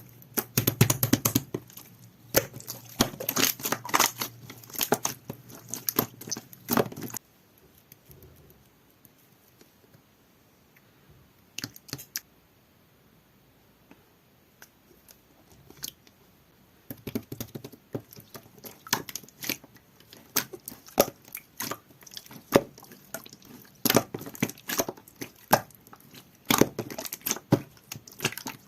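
Clear, jelly-textured slime being squished and pressed by hand, a quick run of small wet clicks and pops. The sound stops about seven seconds in, gives way to about ten seconds of near silence, then starts again.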